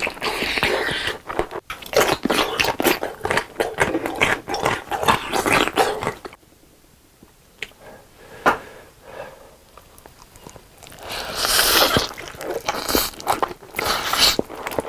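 Close-miked eating: large bites of food and crunchy chewing, loud and crackling, with a quieter stretch of softer chewing in the middle.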